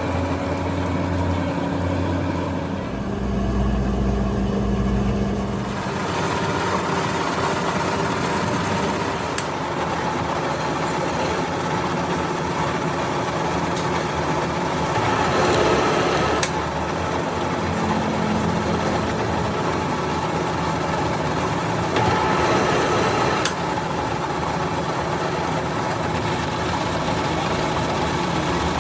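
A motor or engine running steadily, with a couple of brief louder rushes of noise about halfway through and again about two-thirds of the way through.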